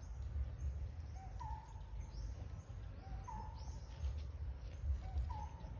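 A bird calling repeatedly: a short two-note call, a lower note then a slightly higher one, about every two seconds. Faint high chirps and a steady low rumble sit underneath.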